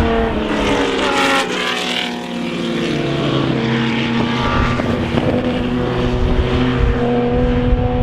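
Racing car engine whose note falls over the first two seconds as it slows, then holds a steady, slowly rising note.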